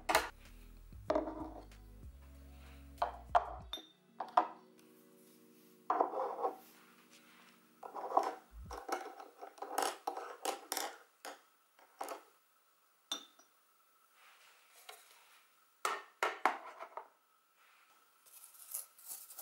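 Watercolour painting supplies being set down on a hard tabletop: paintbrushes, a ceramic mixing palette and dropper ink bottles tapping and clinking as they are put in place. The sound is a series of separate knocks and clinks with short handling rustles between them.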